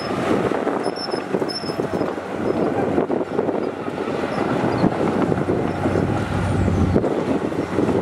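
Diesel engines of a bulldozer and dump trucks running steadily, with a deeper steady hum from about five to seven seconds in.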